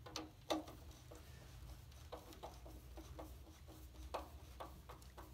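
Light, scattered clicks and taps of a small plastic light housing and its mounting bolt and nut being handled and fitted, with sharper knocks about half a second in and again about four seconds in.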